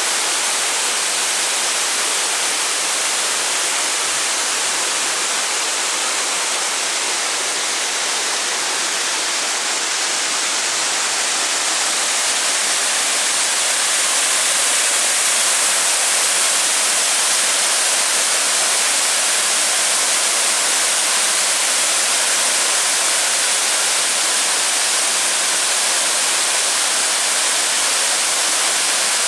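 Rushing water of a mountain stream and waterfall: a steady hiss of white water, growing slightly louder about halfway through.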